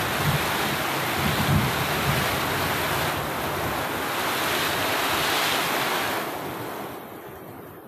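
Heavy tropical rain pouring down in a dense, steady hiss, with a few low buffets of wind on the microphone in the first two seconds. The sound fades down near the end.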